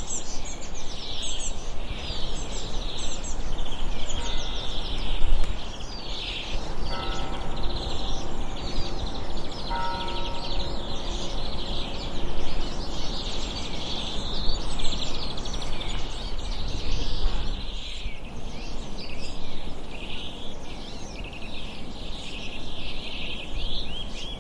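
A dense, continuous chorus of many high chirping calls from a large flock of birds, overlapping without pause, over a steady low rumble. A held tone with several pitches sounds from about four to ten seconds in.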